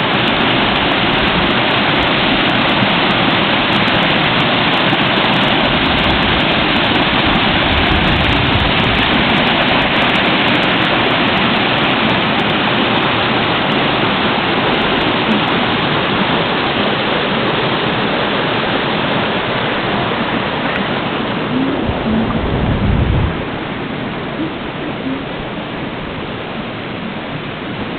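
Small woodland stream rushing and splashing over rocks and little cascades, a steady loud rush of water. Late on there is a brief low rumble, after which the rushing is quieter.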